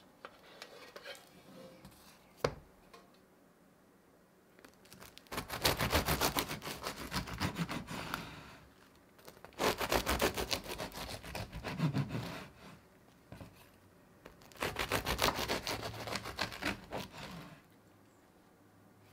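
Knife sawing through the crunchy crust of a baked rosemary focaccia. There are three passes of rapid back-and-forth strokes, each lasting about three seconds. Light taps and one sharp click come in the first few seconds.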